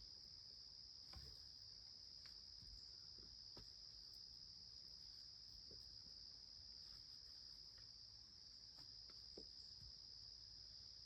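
Faint, steady high-pitched trill of crickets chirring continuously, with a few soft clicks scattered through it.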